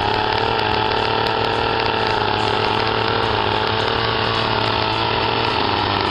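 Gasoline two-stroke chainsaw running steadily at high speed while its bar cuts into an upright log, its pitch holding nearly constant.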